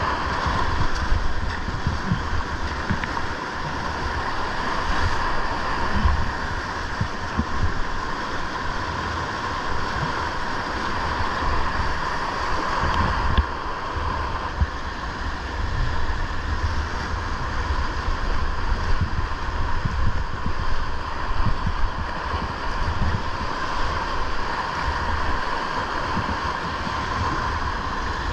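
River rapids rushing steadily, with wind buffeting the microphone in uneven low gusts.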